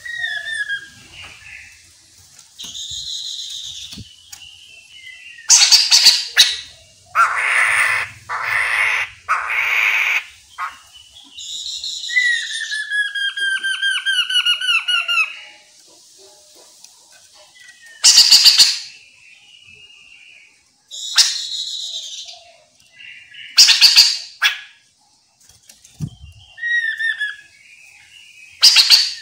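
Chestnut-capped laughingthrushes calling: short whistled notes, loud harsh calls repeated several times, a rasping chatter, and, about twelve seconds in, a fast run of whistled notes falling in pitch.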